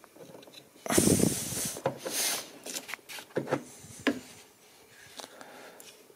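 Hands working engine wiring-harness parts back into place: about a second of rubbing and scraping, a shorter scrape just after, then a few light clicks and knocks.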